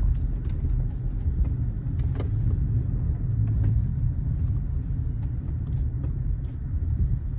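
Car driving slowly, heard from inside the cabin: a steady low rumble of engine and tyres, with a few faint scattered clicks.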